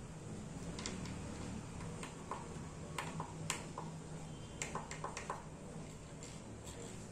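Scattered light clicks and taps from hands handling a 3D-printed plastic enclosure and fitting a knob onto its rotary encoder, over a faint steady low hum.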